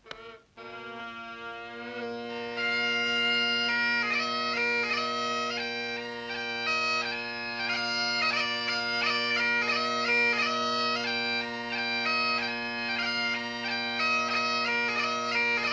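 Highland bagpipes striking up: the drones come in just after the start and hold one steady low note, and from about two and a half seconds in the chanter plays a quick, ornamented tune over them.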